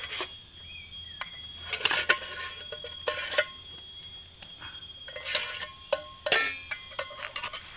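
Stainless steel camping cook-set pieces knocking and clinking together as the nested pot, lid and cups are handled and separated: several separate metallic clinks with a bright ring, the loudest a little past the middle.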